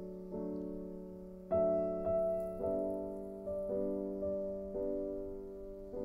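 Slow piano music: chords and notes struck one after another, about one or two a second, each left to ring and fade.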